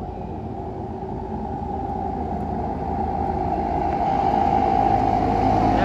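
Bus engine running and growing steadily louder as the bus approaches, a steady whine over a low rumble.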